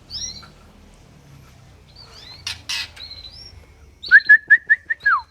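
Aviary songbirds, oriental magpie-robins and white-rumped shamas, calling with short high chirps. Near the end comes a loud run of about six quick whistled notes on one pitch, finishing in a falling glide.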